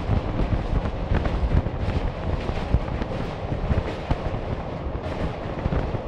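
Train running over a steel truss railway bridge, heard from a carriage window: a loud steady rumble with rapid clattering knocks, and wind buffeting the microphone.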